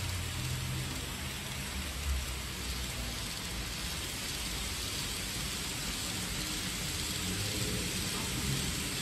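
N-scale model Shinkansen trains running on the layout track: a steady rolling hiss with a low motor hum underneath.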